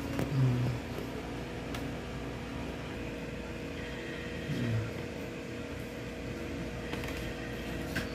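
Steady hum of a running electric appliance, with two brief low-pitched sounds about half a second and about four and a half seconds in.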